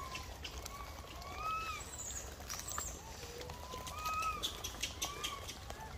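Many short, arched chirping calls at several pitches, some overlapping, from small animals. There are scattered faint clicks under them.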